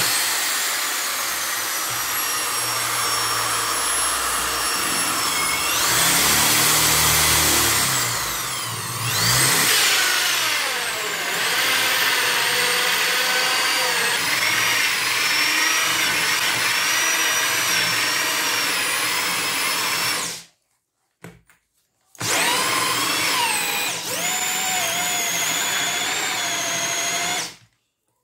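Electric drill with a hole saw cutting into a very hard sonokeling (Indonesian rosewood) plank: a steady motor whine whose pitch sags and recovers as the saw bites into the wood. The sound cuts out twice near the end.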